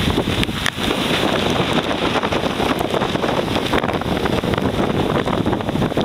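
Typhoon gale buffeting the microphone: a loud, steady rush of wind noise with heavy low-end rumble that swells in the first second.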